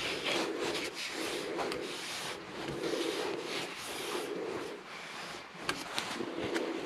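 Repeated rubbing strokes on a turned wooden piece during finishing, each stroke lasting under a second, with a few light clicks between them.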